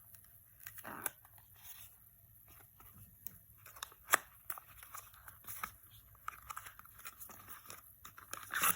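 A small cardboard product box being opened by hand: scattered rustling, tearing and light clicks of the packaging, with a sharper snap about four seconds in and a cluster of clicks near the end.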